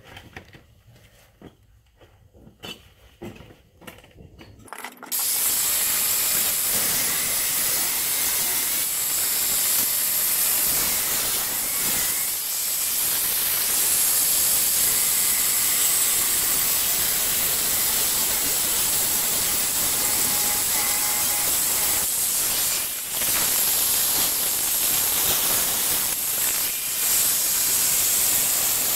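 A few seconds of quiet handling clicks, then a corded angle grinder with a cutoff wheel starts abruptly and cuts through the steel of an ATV's front axle mount. It makes a loud, steady abrasive hiss that dips briefly twice.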